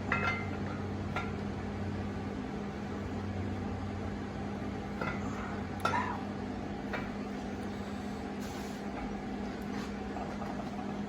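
A few light metallic clinks and taps, spread out, as a camshaft is slid into an engine block, over a steady low hum.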